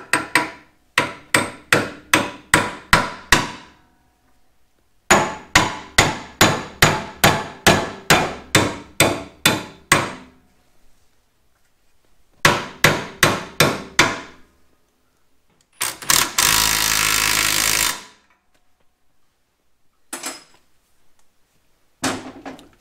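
Hammer blows in three runs of evenly spaced strikes, about two and a half a second, each blow ringing briefly. Then a hiss lasting about two seconds, and two single knocks near the end.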